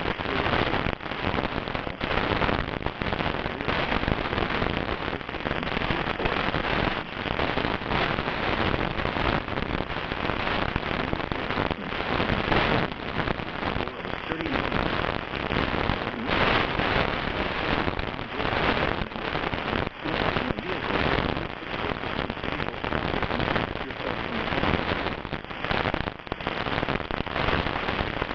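Heavy rain falling steadily, a dense patter of drops that does not let up.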